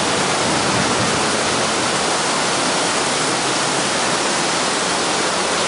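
Heavy thunderstorm rain pouring down, a steady even hiss with no let-up.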